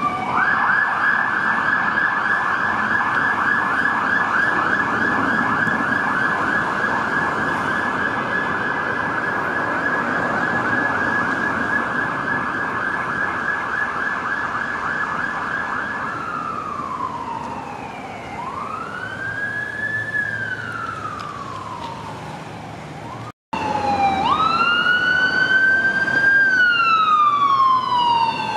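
Federal Signal PA300 electronic siren on yelp, a fast steady warble, switching about two-thirds of the way through to a slow wail rising and falling. After a brief cut near the end, another emergency-vehicle siren wails with a brighter, buzzier tone.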